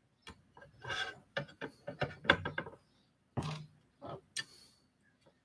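Clicks, taps and rustles of wire leads being handled and pushed into the terminals of an LED strip on a tabletop. A busy run of sharp clicks comes first, then two short scraping rustles near the end.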